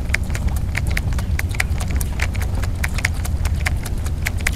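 Rapid, irregular sharp clicks, several a second, over a steady low rumble of wind on the microphone.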